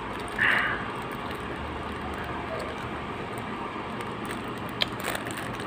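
Steady background noise, with a short crinkle of a clear plastic food wrapper being peeled back about half a second in and a sharp click near the end.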